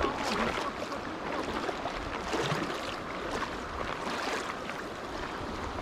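River water rushing and lapping close to the microphone, a steady noisy wash.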